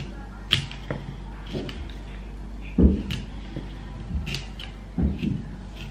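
Kitchen knife cutting broccoli on a wooden cutting board: irregular crisp cuts through the florets and stalk and knocks of the blade against the board, with two heavier thuds about three and five seconds in.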